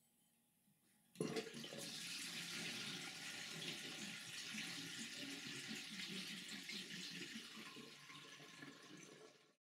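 Running water, a steady rush that starts suddenly about a second in and stops abruptly near the end.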